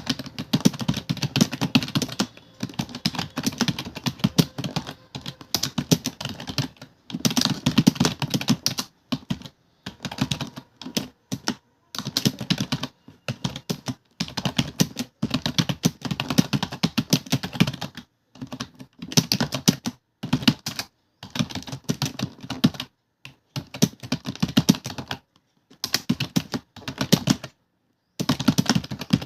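Fast typing on a computer keyboard, with dense runs of key clicks lasting a few seconds each, broken by short pauses.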